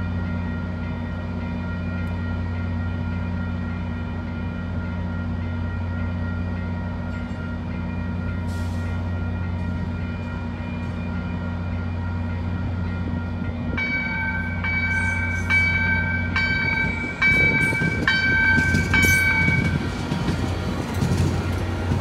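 Railroad crossing warning ringing steadily over a low, even rumble. About 14 s in, the approaching train's horn sounds a chord for about six seconds, and the train's rumble grows as it reaches the crossing.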